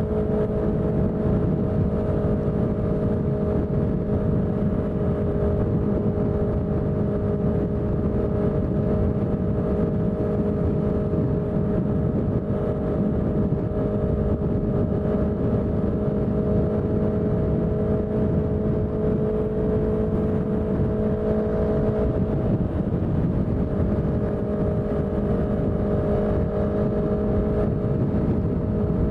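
Honda CBR650F inline-four running through a CS Racing exhaust at steady revs, holding an even pitch over wind and road noise, with a brief slight dip about three quarters of the way through.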